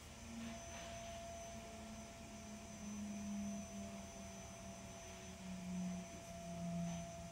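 Steady low background hum with a faint high whine. A lower tone drifts slowly down in pitch as it goes.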